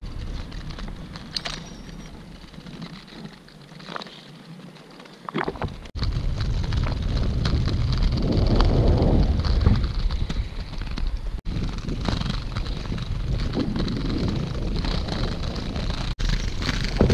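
Inline skate wheels rolling over paving, with wind buffeting the camera's microphone. The noise grows much louder and heavier at the low end from about six seconds in, with a few sharp clicks before that.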